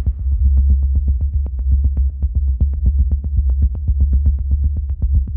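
Electronic background music: a heavy, steady bass under a fast, even ticking beat.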